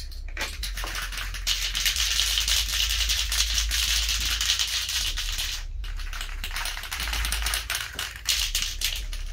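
Aerosol spray-paint can being shaken, its mixing ball rattling in fast, dense clicks, with a short break about six seconds in.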